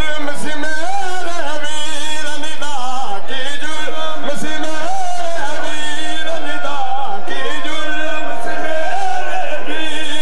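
Men chanting a noha, a Shia mourning lament, in a continuous melodic line that bends up and down.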